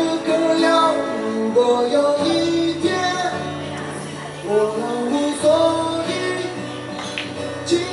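A song added as background music: a sung melody over instrumental backing with sustained low notes.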